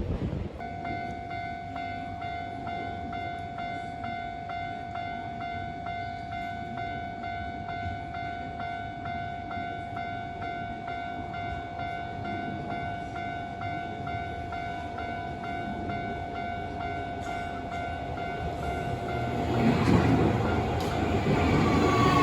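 Japanese level crossing's electronic warning bell ringing in rapid, even strokes. Near the end a train approaches and the rail noise swells over the bell.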